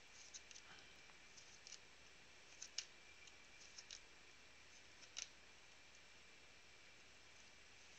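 Trading cards being slid off a stack and flipped by hand, giving a handful of faint, crisp clicks of card stock in the first five seconds.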